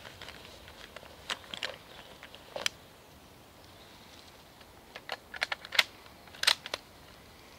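Scattered sharp clicks and small snaps, coming in a few short clusters, as kit and an airsoft rifle are handled and shifted in dry undergrowth; the loudest clicks come a little over two-thirds of the way in.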